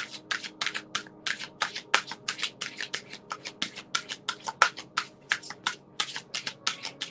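Deck of reading cards being shuffled by hand: a quick, even run of soft swishes, about five a second.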